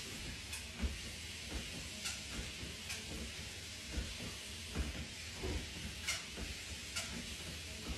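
WalkingPad folding treadmill running, with a steady hiss from its motor and belt and regular soft thumps of bare footsteps on the moving belt.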